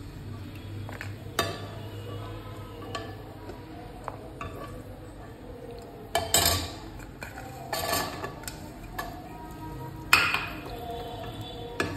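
A spoon clinking and scraping against a cooking pan while dry fruits are stirred in ghee, with sharper clanks about six seconds in and again about ten seconds in.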